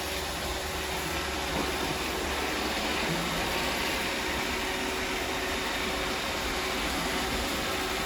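Robot vacuum cleaner running: a steady whirring hiss of its motor, brushes and suction.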